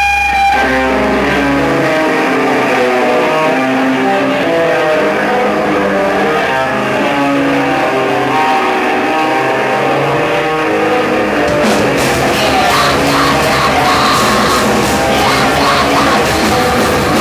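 A post-metal band playing live: electric guitar and bass ring out held chords, and the drums with crashing cymbals come in about twelve seconds in.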